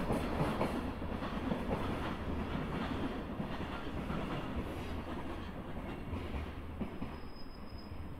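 Departing freight train's container wagons rolling away over rail joints: a steady wheel rumble with a few faint joint knocks, slowly fading as the train recedes.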